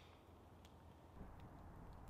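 Near silence with a small wood campfire burning quietly, one faint crackle just over half a second in.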